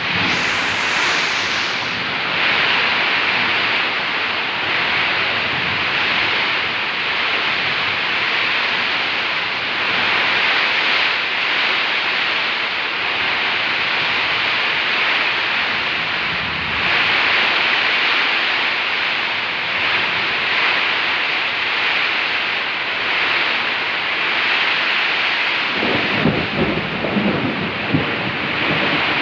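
Heavy rain pouring down in a steady hiss that swells and eases every few seconds. Near the end a lower rumble joins in, with a few sharp peaks.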